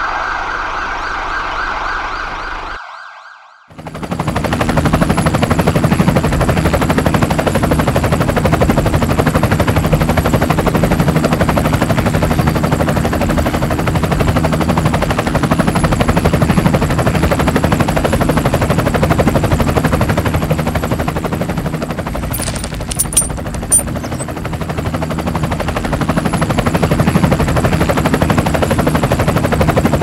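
A small machine running steadily with a dense rapid rattle and hum, starting about four seconds in after a short break; a few sharp clicks come near the end.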